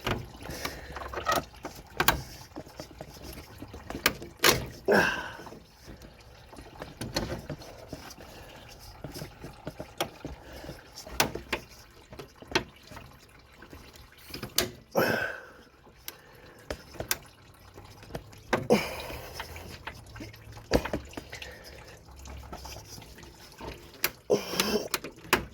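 Scattered clicks, clinks and knocks of hand tools and metal parts as a radiator hose and its clamp are worked loose under a car.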